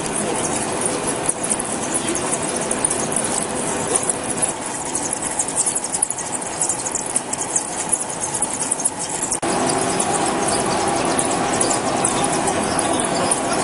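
Heavy metal-turning lathe at work: the cutting tool scrapes with a harsh crackle. About nine seconds in, the sound switches abruptly to a steadier machine hum.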